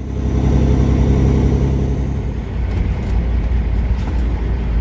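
Kenworth W900 semi truck's diesel engine running steadily under way, a low drone with road noise; the engine note is strongest in the first half and eases slightly about halfway through.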